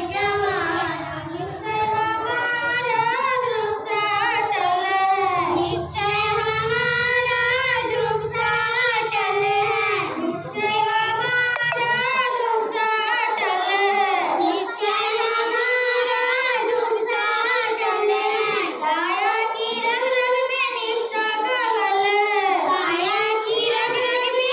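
Young girls singing a Hindi song together into microphones, one continuous sung melody. A low hum sits under the singing for the first half and stops about halfway through.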